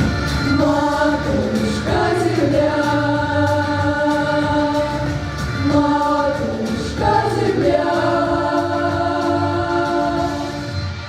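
School vocal ensemble singing long held notes in close harmony, sliding to new chords about two and seven seconds in, over a low instrumental accompaniment.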